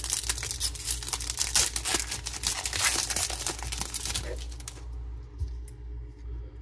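Foil wrapper of a Topps Series 1 baseball card pack being torn open and crinkled for nearly five seconds, then quieter handling of the cards with a few light ticks.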